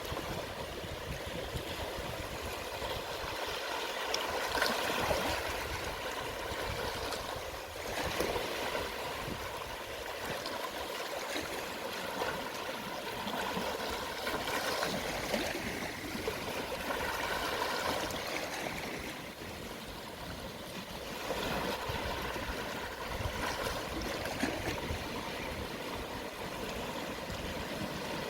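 Gentle sea waves washing and lapping on the shore at low tide, swelling and easing every few seconds.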